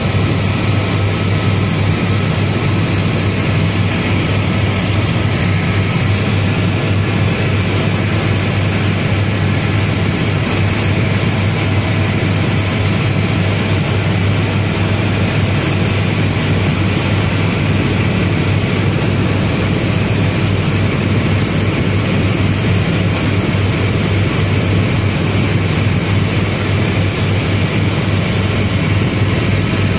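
Tour helicopter heard from inside the cabin in flight: rotor and turbine running steadily, a loud constant low hum under an even wash of noise.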